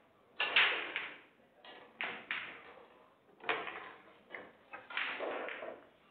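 Sharp clack of a cue striking the cue ball into the last object ball on a pool table, which then leaves the table, followed by further clacks and knocks of balls at irregular spacing.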